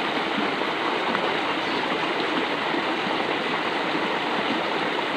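Water rushing steadily along a narrow concrete drainage ditch, an even, unbroken wash of flowing water.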